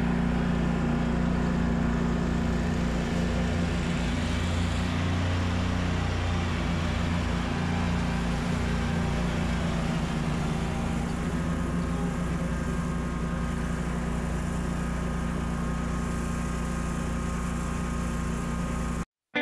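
Stand-on commercial lawn mower's engine running steadily under mowing load, a continuous low hum. It cuts off abruptly near the end.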